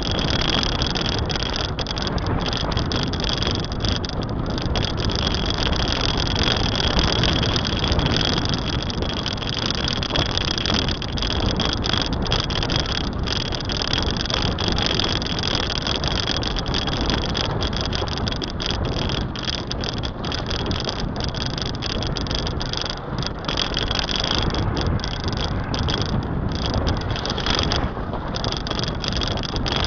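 Steady rushing wind and road noise of a moving car, heard from a camera held at the open window, with a constant high whine over it.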